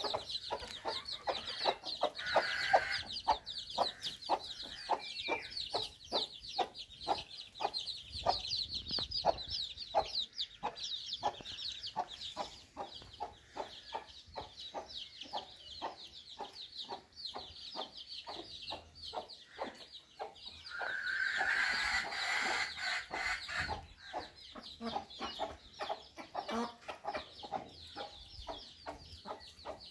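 Chickens clucking in a quick run of short notes, two or three a second, over a steady stream of high peeping chirps from chicks. About three-quarters of the way through, a louder, drawn-out hen call lasts a couple of seconds.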